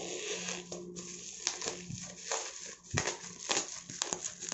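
Bubble wrap and plastic packaging crinkling and crackling as a wrapped microphone box is handled, with a run of sharp crackles through the middle and toward the end.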